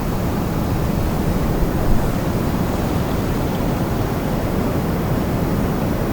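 Wind blowing in a steady, loud rush, its weight deep in the low end, with a brief gust about two seconds in.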